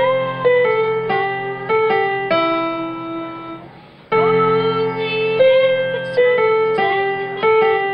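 Electronic keyboard playing a slow melody of held notes, each ringing and fading; the phrase ends, and about four seconds in the same phrase starts over.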